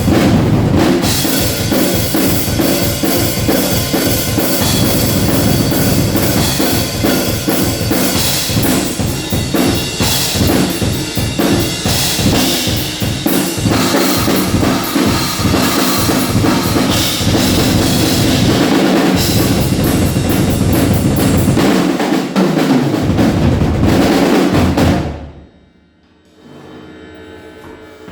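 Drum kit played loudly in dense, rapid strokes, stopping suddenly near the end, after which only a faint hum remains.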